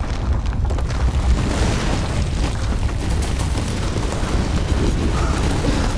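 A loud, continuous deep rumble with a rushing noise over it, a film soundtrack's low sound-design rumble with no separate booms standing out.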